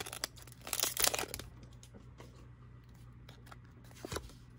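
Foil wrapper of a Pokémon booster pack crinkling for about a second and a half as the cards are slid out of it, then faint clicks of the cards being handled, with one sharper tap near the end.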